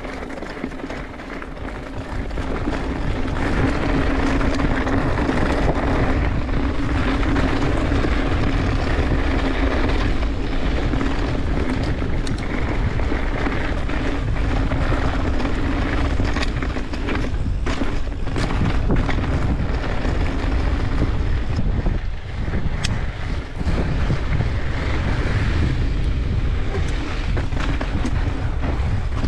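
Mountain bike riding over a dirt trail: wind buffeting the microphone over a low rolling rumble, with a steady hum through the first two-thirds and scattered knocks and rattles from bumps.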